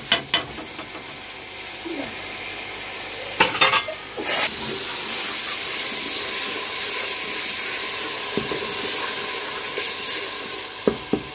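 Chopped tomatoes tipped into hot ghee and spices in an aluminium pressure-cooker pot, with sharp clatters against the pot near the start and again at about four seconds. After that comes a steady, even sizzle of frying.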